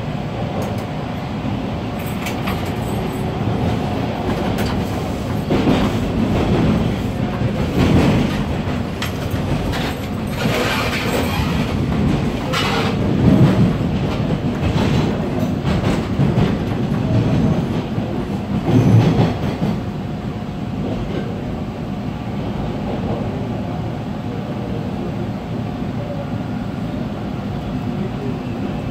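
Toronto subway train heard from inside the car, running on the rails: a steady rumble of wheels and motors. A louder, rougher stretch in the middle carries several sharp clacks of the wheels over rail joints, and the sound then settles to an even run.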